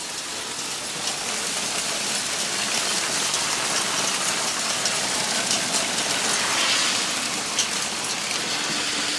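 Heavy rain mixed with hail falling: a dense, steady hiss of downpour with many small sharp ticks of hailstones striking.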